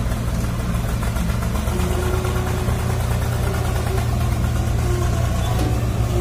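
Heavy diesel engine of the rescue machinery running steadily at an even speed, a deep, constant drone.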